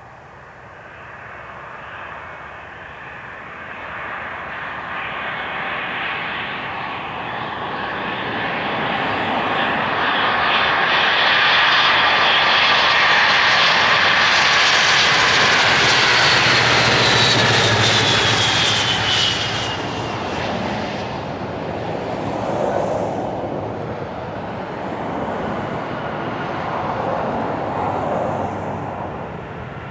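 Airbus A320 jet engines on a landing approach: the whine and rumble grow steadily louder as the airliner closes in and peak as it passes close by, with a falling whine about 15 to 19 seconds in. The sound then settles to a lower engine rumble as the jet rolls out on the runway.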